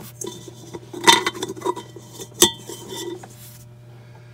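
A plastic drain strainer being worked loose and lifted out of a stainless steel sink, knocking and scraping against the steel with brief metallic ringing; the loudest clack comes about a second in, with a sharp click about a second and a half later.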